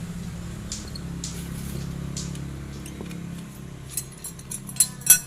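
Metal engine parts and hand tools clinking and scraping during a scooter engine teardown, with a few sharp clinks near the end, over a steady low hum.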